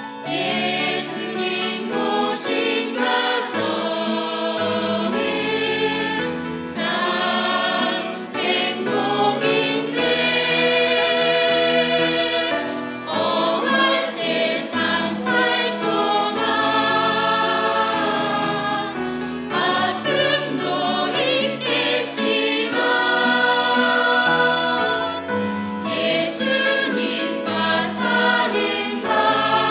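Church choir singing a Christian worship song, holding long notes with vibrato over a low accompaniment that moves from note to note.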